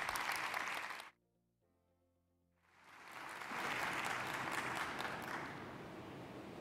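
Audience applauding. It cuts off abruptly about a second in, and after a second and a half of dead silence it fades back in, swells and slowly tapers off.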